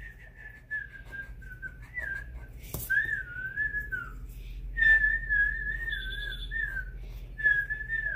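A person whistling, one clear tone wobbling up and down in pitch across about four short phrases with brief breaks between them.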